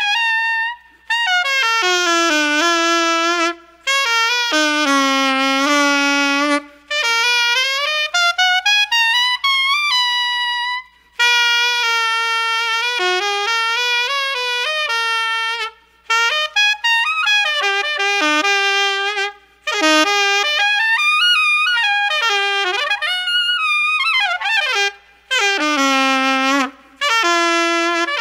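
Unaccompanied jazz saxophone playing solo in phrases a few seconds long, with runs that sweep up and down in pitch and brief pauses for breath between phrases.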